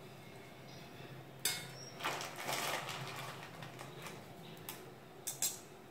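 Metal kitchen utensils knocking, a wire-mesh frying strainer against an iron kadai: one sharp knock about a second and a half in, a rustling hiss for about a second after that, and two quick clinks near the end, over a faint steady hum.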